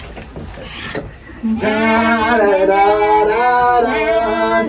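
Singing: after a quieter first second and a half, a voice sings a slow tune in long held notes that step from pitch to pitch.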